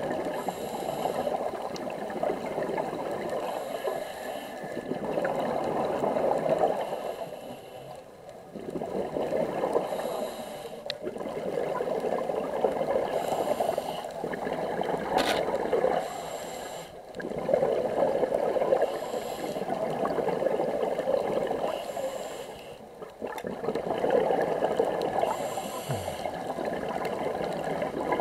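Scuba diver breathing through a regulator underwater, in a cycle every few seconds: a drawn breath, then a gush of exhaled bubbles.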